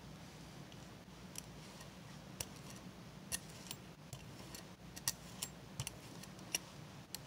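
Hand brayer rolling green paint across a gel plate: irregular sharp little clicks and tacky crackles as the roller passes, over a low steady hum.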